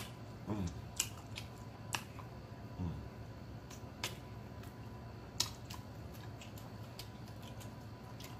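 Close-miked mouth sounds of a person eating spicy chicken wings: sharp, wet smacks and clicks roughly once a second while biting and chewing. Twice, early on, there is a short hum that falls in pitch.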